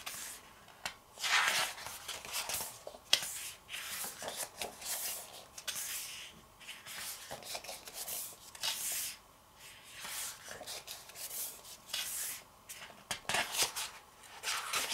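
Paper pages of a paperback photobook being turned by hand, a run of separate swishes and rustles with a few sharp flicks.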